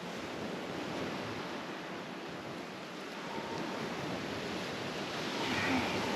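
Steady rushing noise of wind and surf, even throughout with no distinct events.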